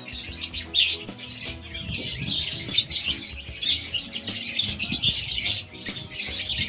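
Hand-fed young birds, about three weeks old, chirping rapidly and continuously in high-pitched begging calls, with background music underneath.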